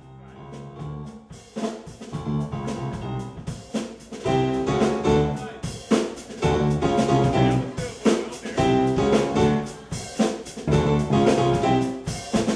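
Live band playing an instrumental opening on keyboard, electric bass and drum kit, starting quietly and getting louder about a second and a half in.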